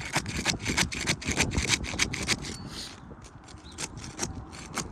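Metal putty knife scraping and hacking at sealed asphalt shingle tabs to break the seal strip, a quick run of sharp scrapes that eases off about three seconds in, then a few more strokes near the end. The tabs are bonded so fast that they only pop when hacked through.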